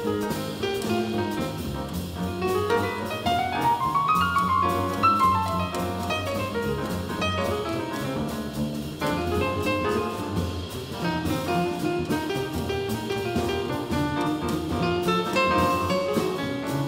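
Live modern jazz from a quartet: grand piano playing busy melodic lines, with a rising run a few seconds in, over double bass and a drum kit keeping time on the cymbals.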